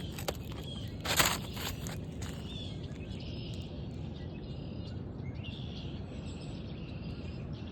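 Steady outdoor background noise with faint high bird chirps. About a second in there is one short, loud rustling burst.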